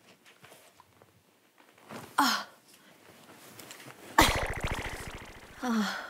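Short non-speech vocal sounds, each falling in pitch, about two seconds in and again near the end. About four seconds in comes a loud, sudden raspy sound that fades over about a second and a half.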